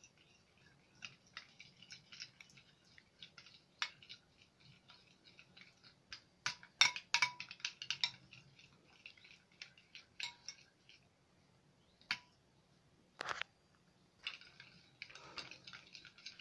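Spoons stirring red glue mixed with glitter in glass bowls, scraping and clinking against the glass in irregular bursts, loudest about seven seconds in, with a sharper knock near the end.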